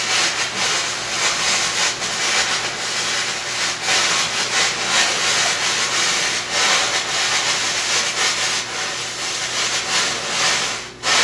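Steady, rough hissing rush of CO2 discharging into a freeze pack around a copper heating pipe, freezing the water inside it. It dips out for a moment near the end, then resumes.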